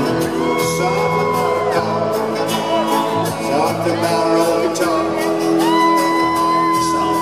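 Live band music from acoustic guitar, keyboards and drums, with long held notes that slide up at the start and drop away at the end. Shouts and whoops come from the audience.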